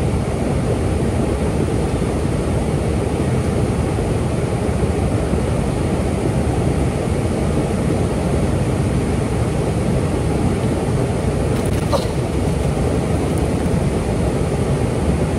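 Steady rushing of river water pouring over a spillway and through the fast current, an even, low-heavy noise that does not let up.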